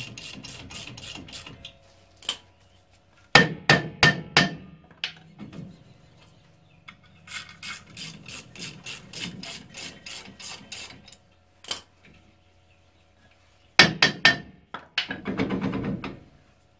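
Sharp metal knocks and runs of quick clicking from hand tools working at a stuck steel rear brake drum, with two clusters of loud strikes and a scraping sound near the end.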